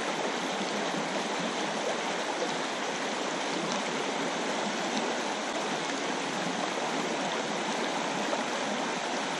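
Shallow river rushing over a stony riffle: a steady, even rush of flowing water.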